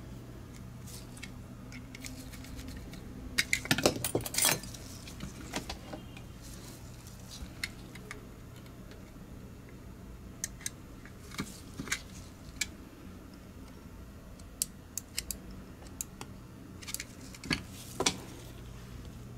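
Light clicks and clatter of small plastic mouse parts being handled with metal tweezers at the scroll-wheel assembly. There is a quick cluster of clatter about four seconds in, then scattered single clicks.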